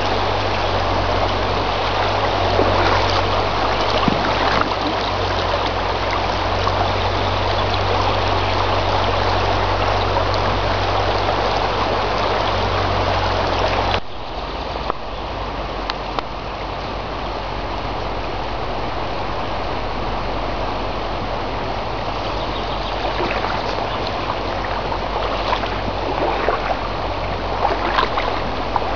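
Guiers Mort river water flowing in a steady, loud rush of noise. About halfway through it cuts abruptly to a slightly quieter stretch of flowing water, with a few small clicks near the end.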